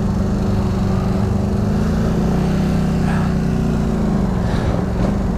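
Polaris Scrambler XP 1000 ATV's twin-cylinder engine running at low, steady throttle while the quad crawls along a muddy trail, its pitch dipping slightly about halfway through and picking up again.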